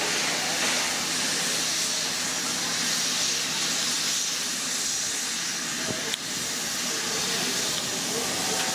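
New South Wales 30 class 4-6-4T steam locomotive 3016 approaching under power, giving a steady hiss of steam.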